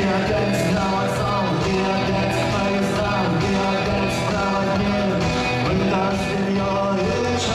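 Rock-style song with guitar, a voice singing, and steady cymbal or snare strokes.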